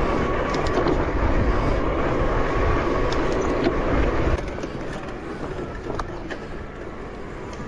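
Fat-tire e-bike riding over a dirt trail: a steady rolling rumble of the tires with small rattles and ticks. The sound drops to a quieter rolling noise about four seconds in.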